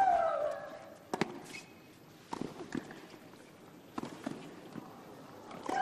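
Tennis rally on a hard court: racket strikes on the ball about every one to one and a half seconds, with a player's drawn-out shriek falling in pitch on the shot at the start and another near the end. Lighter footfalls and scuffs on the court come between the strikes.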